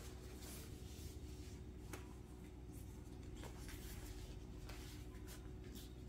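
Thin sheets of yufka pastry and a clear plastic separator sheet being peeled apart and laid on a silicone pastry mat: soft rustling with several short, sharp crackles, over a faint steady hum.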